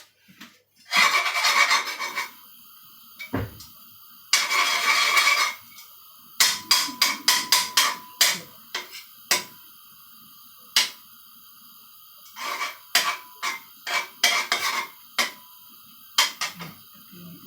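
Kitchen utensils clattering and scraping against cookware: two scrapes of about a second each, then two quick runs of knocks and clicks.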